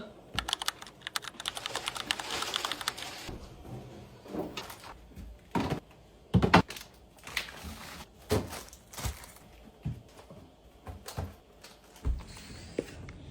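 Clatter of household items and containers being handled and set down: a fast run of clicks in the first three seconds, then separate knocks and thuds about once a second, the loudest a little before the middle.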